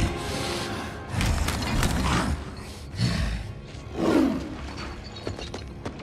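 Film soundtrack: music mixed with heavy low thuds about a second apart, then fainter scattered clicks near the end.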